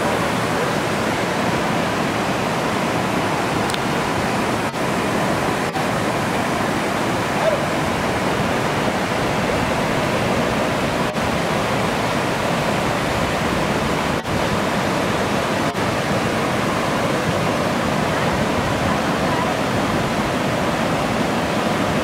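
Willow Creek cascade: white water tumbling over rock slabs and small drops, a steady rush.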